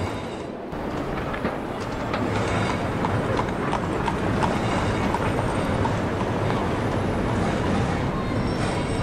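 Horse hooves clip-clopping on a street over a steady rumbling bed of traffic noise, added as period street sound effects.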